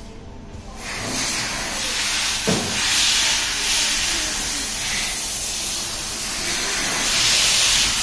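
Steam hissing through a coffee machine's steam solenoid valve and its tubing. The hiss starts about a second in and swells louder twice, around three seconds in and again near the end, with a single click about two and a half seconds in.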